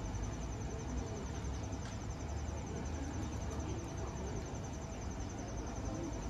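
Crickets chirping in a steady, evenly pulsed high trill, over a low background rumble.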